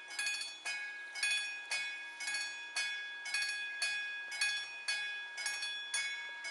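Warning bell of an old VÚD railway level-crossing signal ringing, about two even strikes a second, each note ringing on and fading before the next. It signals that a train is approaching the crossing.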